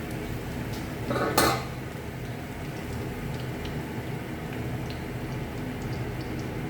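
Metal utensils clanking and scraping as ground masala is emptied from a mixer-grinder jar into the cooking pot. There is one loud clank about a second and a half in, then light taps and scrapes, over a steady low hum.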